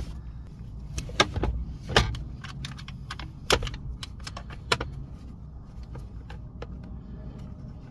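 Sharp metallic clicks and clinks of small bolts and hand tools being handled while the blower motor is bolted back into its housing. The clinks come every second or so and thin out after about five seconds.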